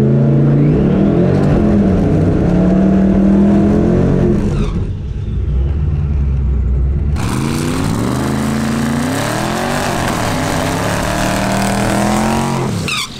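Twin-turbo LS V8 in a fourth-generation Camaro running and revving up and down, heard inside the caged cabin. About seven seconds in it changes to a burnout: the engine is held high over the loud hiss of the spinning rear tyres, with the revs rising again and then falling near the end.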